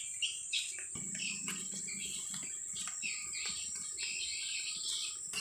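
Small birds chirping in short, repeated calls over a steady high-pitched insect drone.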